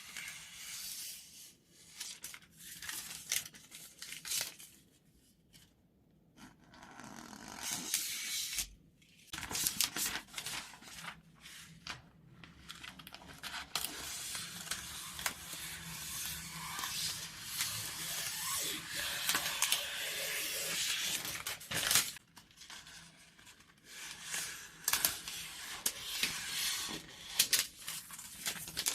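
New scissors sliding through sheets of paper and plastic film, each cut made in one motion: a crisp hissing slice broken by sharp clicks, with short pauses between strokes and one long, nearly unbroken run of cutting in the middle.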